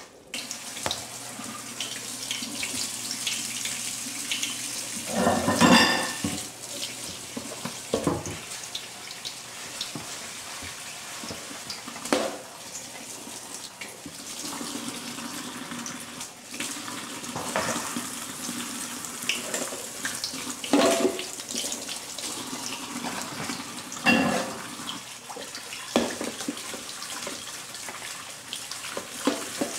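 Eggplant slices sizzling in a frying pan of hot oil, a steady hiss that starts about half a second in, with a few louder knocks scattered through it.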